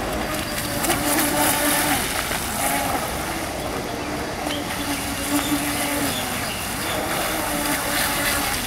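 Radio-controlled speed boat running at speed across a pond: its motor drones with a pitch that wavers and shifts as it turns and throttles, over a steady hiss.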